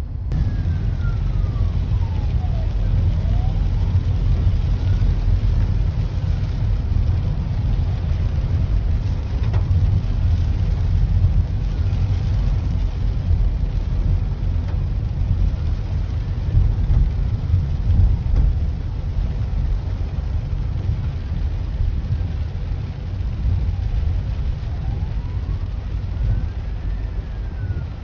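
Rain on a car's windscreen and roof heard from inside the cabin, with a steady low rumble, while an emergency vehicle's siren wails faintly ahead, slowly rising and falling.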